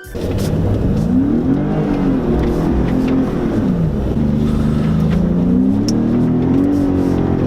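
A motor vehicle's engine running under throttle: its pitch climbs and falls once, then climbs slowly again and holds high near the end.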